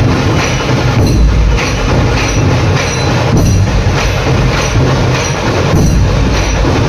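Dhol-tasha troupe drumming: big dhol barrel drums and tasha kettle drums beating a loud, fast, unbroken rhythm.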